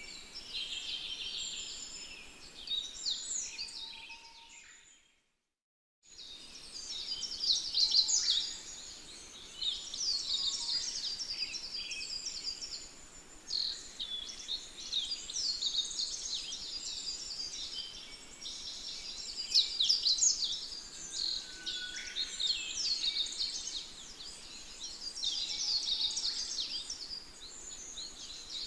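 Dense chorus of many small birds chirping and twittering, high-pitched and overlapping, cut off briefly about five seconds in.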